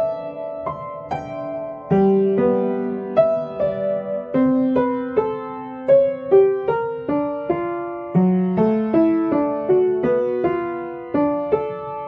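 Background piano music: a slow melody of struck notes and chords, each one fading after it sounds.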